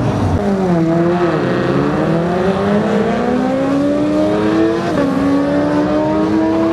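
A car's engine accelerating hard down a drag strip. Its pitch climbs through the gears and drops at the upshifts, once about a second in and again about five seconds in.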